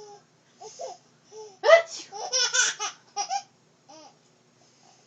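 A 10-month-old baby giggling at her mother's sneezes: a few small chuckles, then a louder run of high-pitched giggles from a couple of seconds in.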